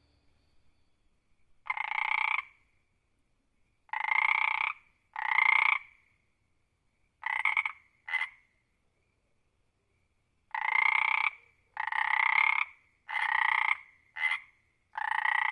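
A frog croaking about ten times: calls each under a second long, a few very short, coming in irregular groups with pauses of a second or two between them.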